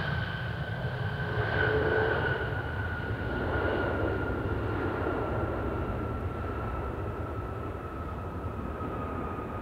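Boeing 787-9 airliner on its landing rollout: a high engine whine slowly falling in pitch over a deep rumble, with swells of roar about two seconds in and again near four seconds, then fading as the jet slows and moves away.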